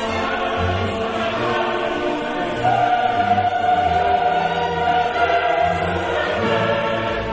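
Choral music with orchestra: a choir singing long held notes, growing a little louder about three seconds in on one long sustained note.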